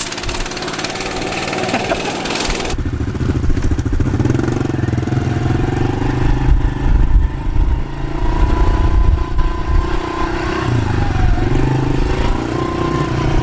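An engine running, its pitch wavering up and down, after a loud hiss that cuts off abruptly about three seconds in.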